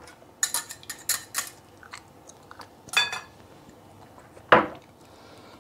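Kitchen utensils clicking and clinking against glassware as yogurt is spooned into a glass bowl of milk and a wire whisk is set in it. There is a run of light clicks in the first second and a half, a short ringing clink about three seconds in, and a sharper knock about a second and a half later.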